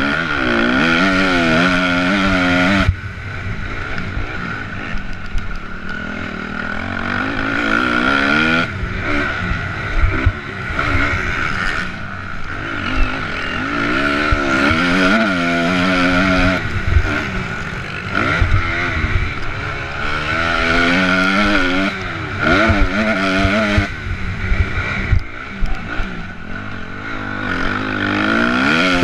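Motocross bike engine revving hard under racing throttle, its pitch climbing and dropping again and again as the rider shifts gears and rolls off and back on the throttle.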